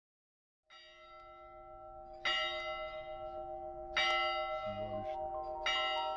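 Church bell tolling, four strikes a little under two seconds apart, each left to ring on; the first comes in softly. About two-thirds of the way in, a tune of short bell-like notes joins, as the start of a music track.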